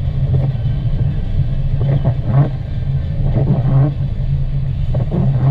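Car interior rumble while driving: steady low engine and road noise, with a brief fainter sound recurring about every second and a half.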